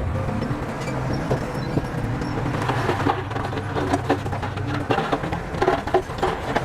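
Diesel engine of heavy earthmoving machinery running steadily, with a run of clanks and rattles starting about two and a half seconds in.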